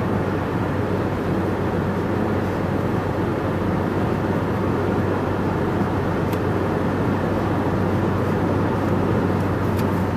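Steady road and engine noise heard inside a car cruising at freeway speed: an even rush of tyre and wind noise over a low, constant hum.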